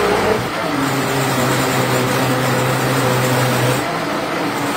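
Commercial countertop blender running at high speed on a fruit smoothie: a loud, steady motor drone with a hum, briefly dipping near the end. It is run too high, so the smoothie splatters out of the jar.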